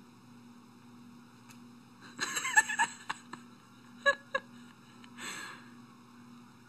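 A small dog sniffing and snuffling at a piece of food held at its nose: a burst of snuffles about two seconds in, two short clicks about four seconds in, and a brief sniff a second later.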